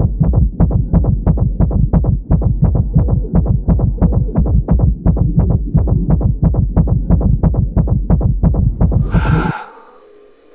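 Racing heartbeat sound effect: heavy, low thumps at about four to five a second. It cuts off suddenly near the end with a short, sharp burst, leaving a faint hum.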